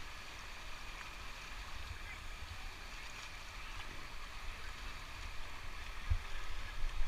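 Steady rush of river water, with wind gusting on the microphone as an uneven low rumble and a couple of louder buffets near the end.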